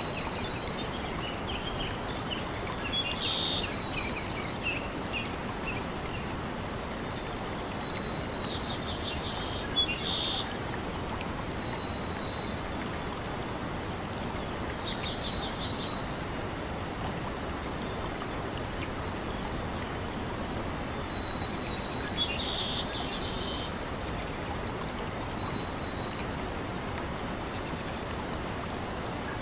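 Nature ambience: a steady, even wash of water noise, with short clusters of high bird chirps a few times, about three, ten, fifteen and twenty-two seconds in.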